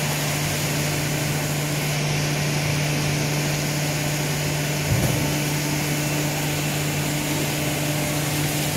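High-pressure processing machine running: a steady mechanical hum with a constant low tone over a noisy whir, and a short low thud about five seconds in.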